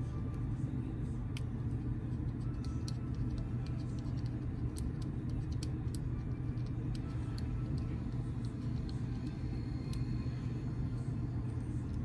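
Faint scattered clicks and taps of small plastic parts being handled as the ring is fitted back onto the plastic end cap of an Oster 76 clipper, over a steady low hum.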